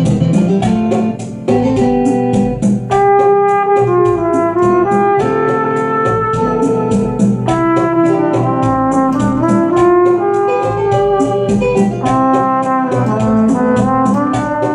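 A brass horn with a wide flared bell plays a melody of held notes over a keyboard accompaniment with a steady beat. The horn comes in strongly about three seconds in.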